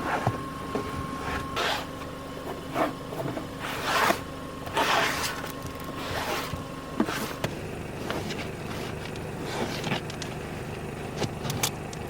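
Scraping, rustling and a few sharp knocks of cleaning and handling things in a van's front cab, coming in separate swishes, with a faint steady hum that stops about seven seconds in.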